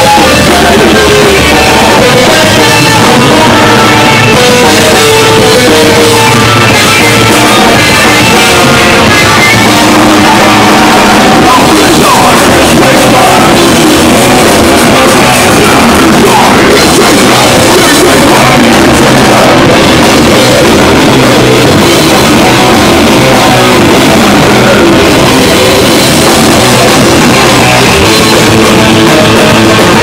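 Live heavy metal band playing loud, with electric guitars, bass guitar and drum kit, recorded right up at the stage.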